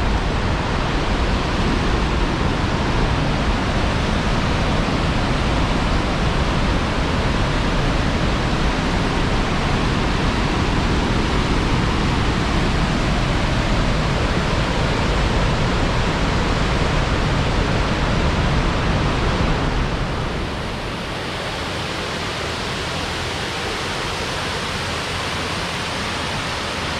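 Flooded waterfall in full spate after heavy rain: a steady, dense rush of falling water. About twenty seconds in it gets slightly quieter and less deep.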